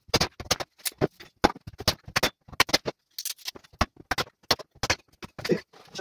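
Split firewood and kindling knocking against each other and against the stove as they are handled and laid into the firebox: an irregular series of short, sharp wooden knocks.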